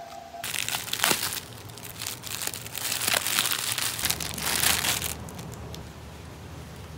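Packaging crinkling and crumpling as it is handled, with a few sharp crackles; it starts about half a second in and stops about five seconds in.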